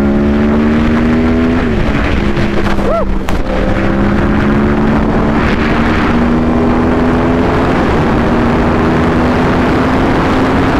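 Yamaha R1 inline-four sportbike engine pulling hard under acceleration with heavy wind rush. Its pitch climbs, drops briefly at upshifts about one and a half and three seconds in, then rises slowly and steadily through the next gear.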